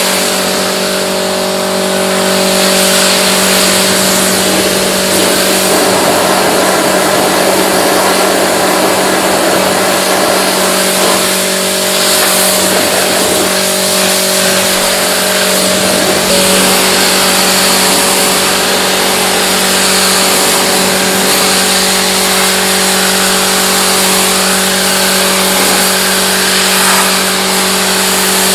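Pressure washer running: the pump's steady hum under the hiss of the high-pressure jet spraying water onto a mud-caked car's panels and glass.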